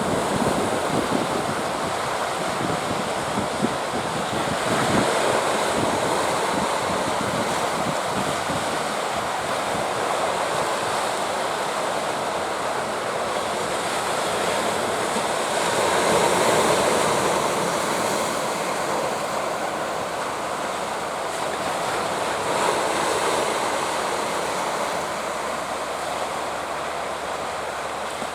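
Sea surf breaking on rocks, a steady wash that swells in surges every several seconds, with wind buffeting the microphone in the first few seconds.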